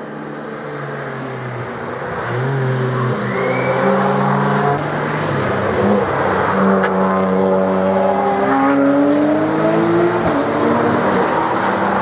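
Several racing cars' engines at full throttle, approaching and passing close together. They get louder over the first three seconds, then hold loud, with each engine note sliding in pitch as the cars go by.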